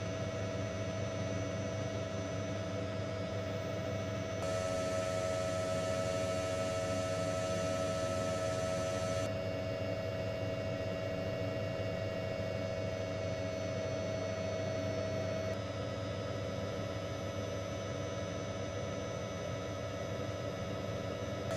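Steady drone of a news helicopter in flight, a low hum with a high whine held on a few fixed tones. The mix of tones changes abruptly three times.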